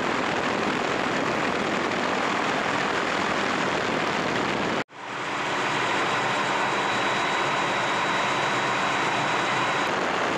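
Helicopter cabin and rotor noise running steadily. It cuts out abruptly about five seconds in, then comes back as an even drone with a faint high whine.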